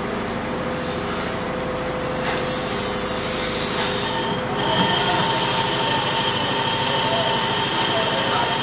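Bench drill press running, its bit drilling into a carbon steel kukri blade; about halfway through a steady high metallic squeal of the bit cutting the steel sets in.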